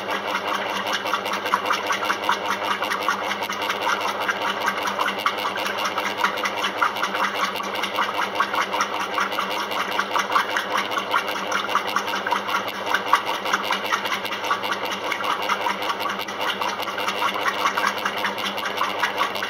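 Maytag commercial top-load washing machine running a wash cycle: a steady mechanical drone with a fast, even rattle.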